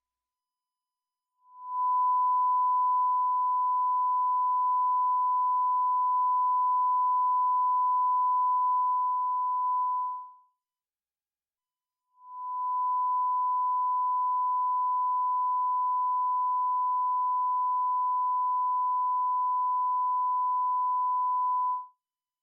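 Broadcast line-up test tone: a pure, steady beep at one pitch. It sounds for about nine seconds, stops for under two seconds, then returns for about ten more.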